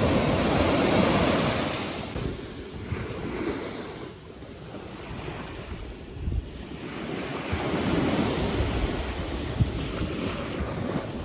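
Waves washing onto a sandy beach, the rush of water swelling and falling back over several seconds, with wind buffeting the microphone.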